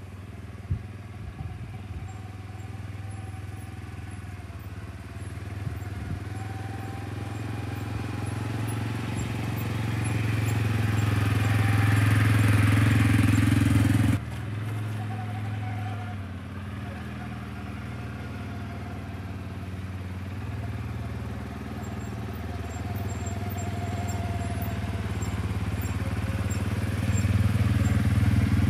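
CFMoto CForce 520L ATV's single-cylinder four-stroke engine running as the quad drives by towing a trailer, growing louder as it approaches. The sound breaks off abruptly about halfway through and comes back quieter, then builds again as the quad passes close near the end.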